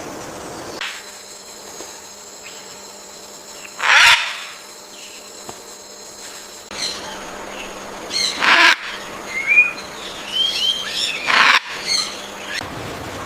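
Blue-and-gold macaws squawking: loud single squawks about four seconds in, again after eight seconds and once more near the end, with a few short chirping calls between them over a faint steady hum.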